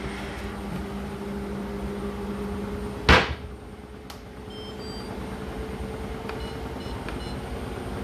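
Whirlpool WFO3P33DLXUK dishwasher control panel giving short high beeps as its programme buttons are pressed. A steady low hum runs underneath. A single sharp knock about three seconds in is the loudest sound, and the hum drops after it.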